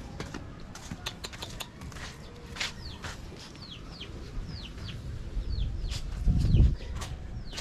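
Chicks peeping: a run of short chirps, each falling in pitch, about two a second. There are a few clicks, and a low rumble is loudest about six seconds in.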